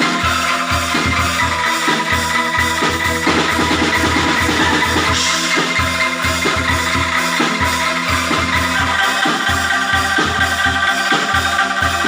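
Angklung ensemble playing: shaken bamboo angklung sound sustained, tremoloing notes over a steady beat of low bass strokes.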